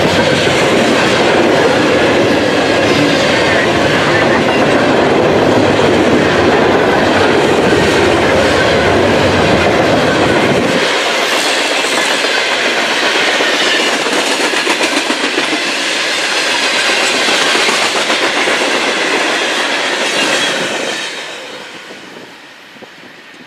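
Freight train of open-top coal hopper cars rolling past, steel wheels on the rails, loud and steady. The noise falls away about 21 seconds in as the last car goes by.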